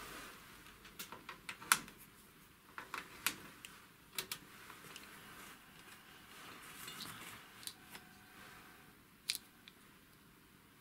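Scattered light clicks and taps of test leads being handled and set against small pins on a workbench.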